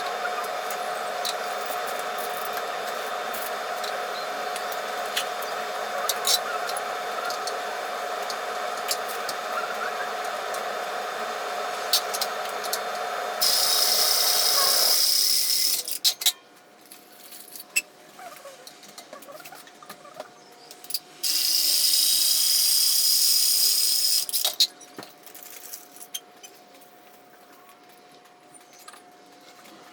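A Ridgid RP210 battery press tool crimping ProPress copper fittings: two motor cycles of about three seconds each, loud and high-pitched, one about 13 seconds in and one about 21 seconds in. A steady mechanical hum comes before them.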